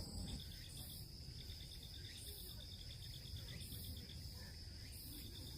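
Insects chirping: a steady high-pitched whine, with rapid trills of quick pulses that start and stop over it, and a low rumble underneath.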